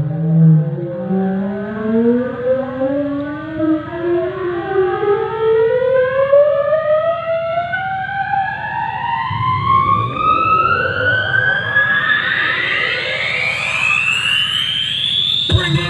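A siren-like synth sweep played through a large outdoor sound system. It is a single tone with overtones that rises steadily in pitch for about fifteen seconds, from a low hum to a high whine, as a build-up in a DJ remix. A bass hit breaks in right at the end.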